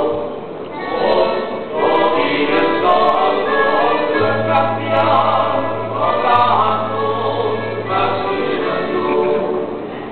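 Men's choir singing a folk song together on a stage, phrase after phrase, with a low bass note held for a few seconds in the middle.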